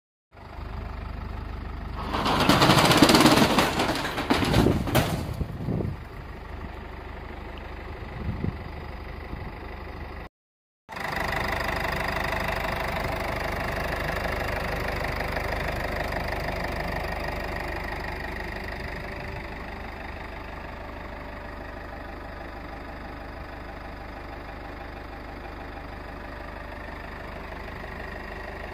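Nissan Skyline R33 GT-R's RB26DETT twin-turbo straight-six engine, run after standing unused for a long time. A loud, noisy burst comes about two seconds in and lasts a few seconds. After a short break the engine idles steadily and smoothly, without stumbling, and the idle settles a little quieter after several seconds.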